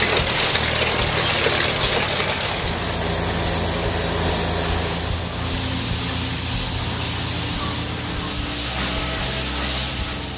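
Engine running steadily under a loud, continuous hiss, which grows stronger about halfway through.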